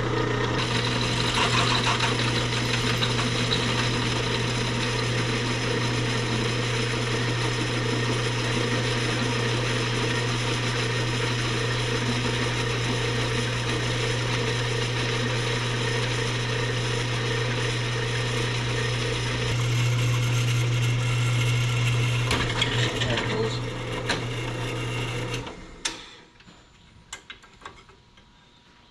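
A motor-driven shop machine running steadily with a low hum and mechanical clatter, then switched off about 25 seconds in, followed by a few light metal clicks.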